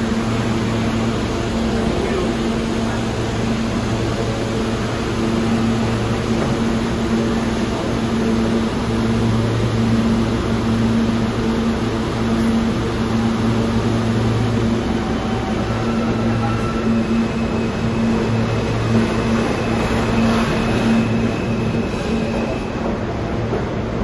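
New York City subway train standing at the platform, its onboard equipment giving a steady low hum. In the second half thin whining tones come in as the train starts to pull out.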